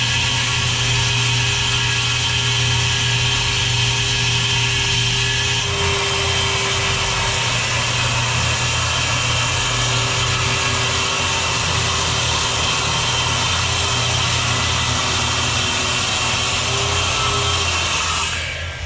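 Handheld electric circular saw running and cutting through a thick UHMW polyethylene plastic sheet: a steady, loud whine with cutting noise, winding down near the end.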